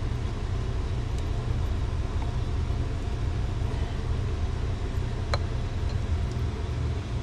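Steady low rumble with one sharp click about five seconds in.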